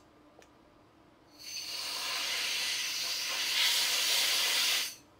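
Aerosol spray can hissing in one continuous burst of about three and a half seconds, starting a little over a second in and cutting off sharply.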